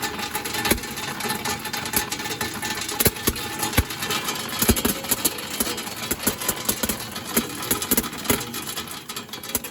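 Anzai LEO-300D5 colour sorting machine running on fried potato: a steady mechanical hiss and hum with frequent, irregular sharp clicks and pops.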